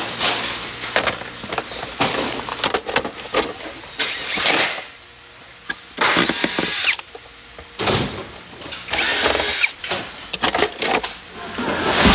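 A power tool working metal in short runs of about a second each, stopping and starting several times, with clicks and knocks in the pauses.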